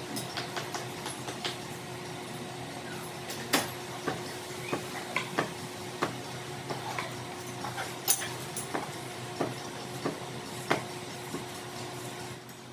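Workshop machinery: a steady machine hum with many irregular sharp clicks and knocks, the loudest about three and a half and eight seconds in.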